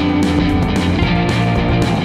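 Background music: a steady rock-style track with guitar.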